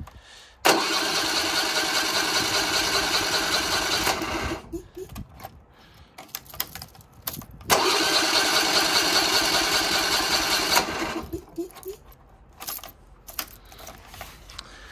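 A small engine's electric starter cranks it twice, about three seconds each time, with a pulsing whir. Both times the engine fails to catch, which the owner suspects is because it has run out of gas.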